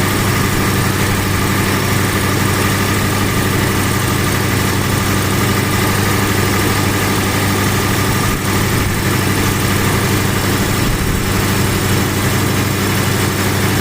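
1979 MG's engine idling steadily, warmed up to operating temperature, with its electric radiator cooling fans running.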